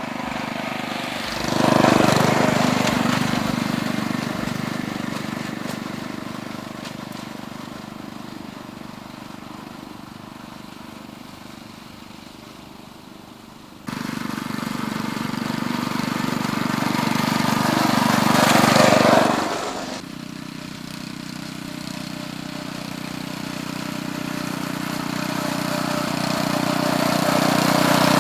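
Ride-on 7¼ in gauge miniature railway train running on its track, passing close by three times, each time getting louder and then fading away. The sound changes abruptly twice partway through.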